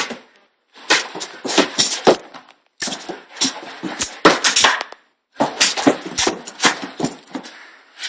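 A dog chewing and mouthing a squeaky rubber toy: quick irregular runs of squeaks and clicks, broken by three brief pauses.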